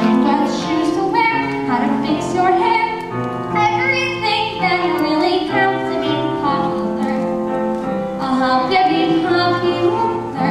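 Young girl singing solo into a handheld microphone over sustained instrumental accompaniment.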